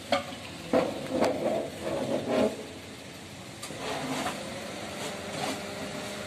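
A motor vehicle's engine running close by, with a few short, sharp, loud sounds in the first two and a half seconds, then settling into a steady idling hum from about four seconds in.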